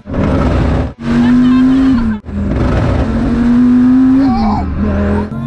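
Dodge Viper V10, tuned to about 1500 hp, under hard acceleration, heard from inside the cabin in several short cut-together bursts. Under a loud rush of noise, the engine note climbs slowly and then drops sharply twice, at gear changes of the manual gearbox.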